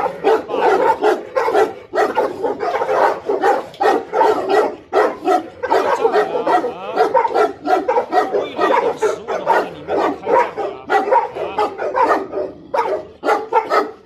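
Tibetan Mastiffs barking at each other, a steady run of barks about two or three a second with no pause.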